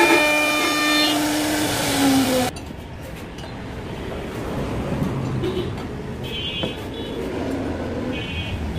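CNC router spindle running steadily with a whine as it carves wood, dropping slightly in pitch and then cutting off suddenly about two and a half seconds in. A quieter, uneven low rumble follows.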